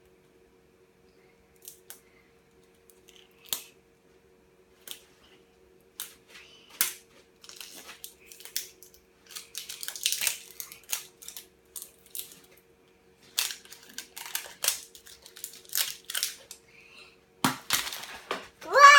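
A surprise egg's packaging being handled and pulled open by hand: scattered clicks and crinkling rustles, sparse at first, then busier, with short rips and snaps.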